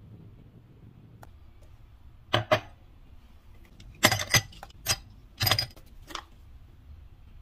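Ice cubes dropped one after another into a tall drinking glass, clinking sharply against the glass and each other: a pair of clinks, then a quick cluster of several more.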